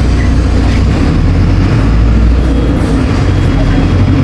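City bus running, heard from inside the cabin: a steady, heavy low rumble of engine and road with a couple of faint clicks.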